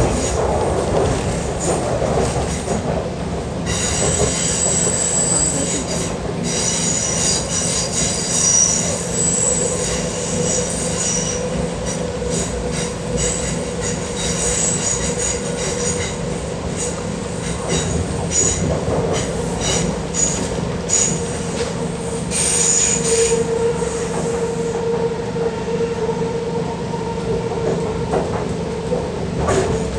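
MTR Kwun Tong Line C-train heard from inside the carriage, rolling steadily along the line. Its wheels squeal on and off in high-pitched tones, strongest over the first half and again briefly near the three-quarter mark.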